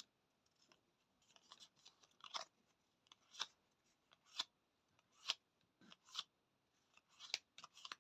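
Small Lenormand oracle cards being handled one at a time, making faint crisp card snaps and rustles about once a second.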